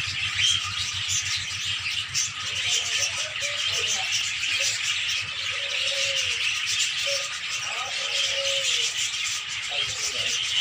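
Rabbits chewing and rustling fresh grass close up: a steady crackling rustle made of many small clicks.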